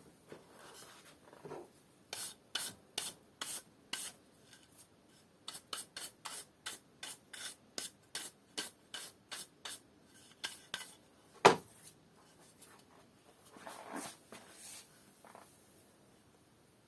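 Quick rhythmic rubbing strokes against a freshly routed MDF workpiece, about two a second, followed by one sharp knock and a little softer rubbing.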